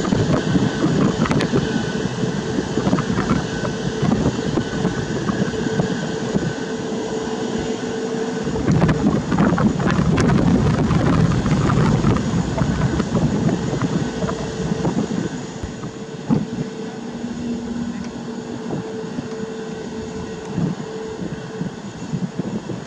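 Airbus A320neo's CFM LEAP-1A turbofan engines run up to takeoff thrust, a loud continuous rumble with a steady hum, loudest about ten seconds in and then slowly fading as the jet rolls away down the runway.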